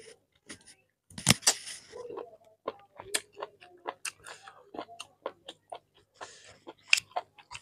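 Close-up eating sounds of chicken curry and rice eaten by hand: a quick run of short wet smacks and clicks from chewing and lips, about three a second, with the sharpest smack about a second in. Soft squelching of fingers mixing rice and curry comes in between.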